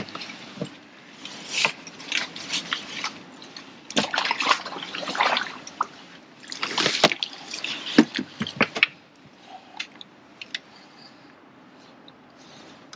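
Water splashing and dripping as a landing net holding a freshly landed fish is lifted out of the lake and handled, in several bursts over the first nine seconds; after that only a few small clicks.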